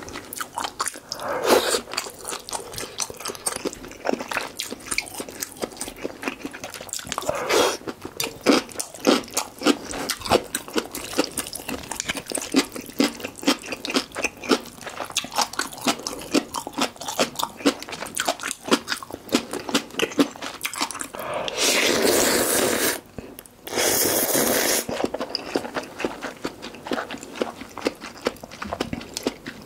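Close-miked chewing and wet mouth sounds of someone eating malatang noodle soup: a steady run of small clicks and smacks. About 22 and 24 seconds in come two longer, louder slurps of noodles and broth.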